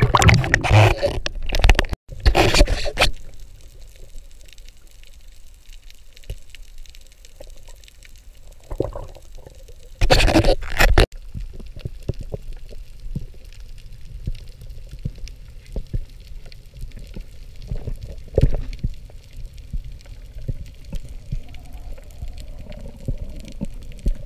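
Water splashing and churning at the surface as a freediver duck-dives, then the muffled sound of being underwater, with faint scattered clicking and crackling. About ten seconds in there is a second loud rush of water noise lasting about a second.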